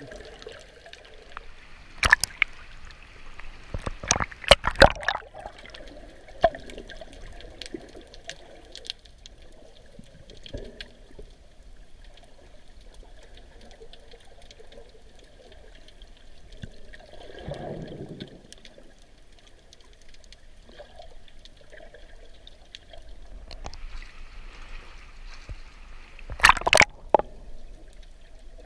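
Running water trickling steadily, with a few sharp knocks about two seconds in, around four to five seconds in, and near the end.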